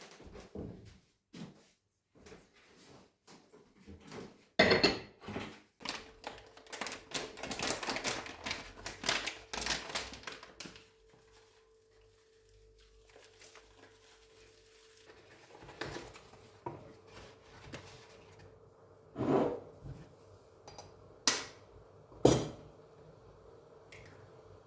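Kitchen clatter of dishes, pots and utensils knocking while food is prepared. A dense run of quick clicks and taps comes in the middle, with a few louder single knocks around it. A faint steady hum sets in about six seconds in.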